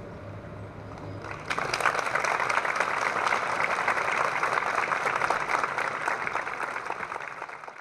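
Audience applauding, breaking out about a second and a half in after the orchestra's last note has died away, and fading out near the end.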